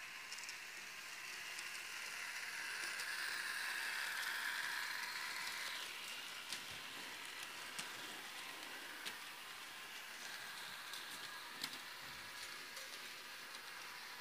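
H0 model train running on its track: a steady rushing hiss that swells and then fades about six seconds in, followed by a few scattered light clicks.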